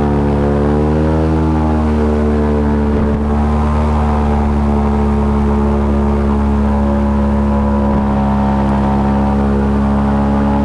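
Airboat's engine and air propeller running at a steady speed, a loud continuous drone that dips and rises slightly in pitch in the first couple of seconds, then holds even.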